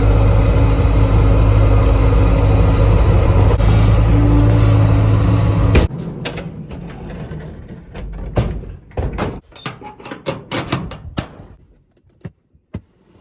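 Skid steer engine running steadily for about the first six seconds, then ending abruptly. A scattering of quieter clicks and knocks follows.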